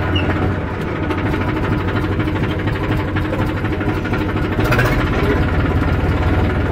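Tractor engine running steadily under way.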